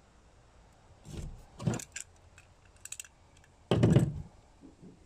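Knocks and clunks of a driveshaft's carrier bearing bracket being worked off the shaft and handled on a plastic folding table, with a few light clicks. A heavier thud comes about four seconds in as the bracket is set down on the table.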